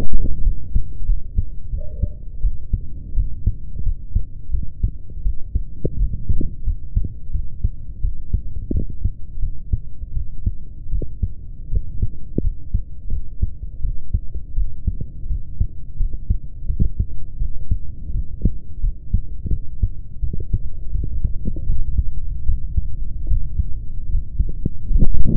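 A person's heartbeat recorded close up: steady, muffled thumping beats with a low hum beneath them. A louder thump comes at the very end.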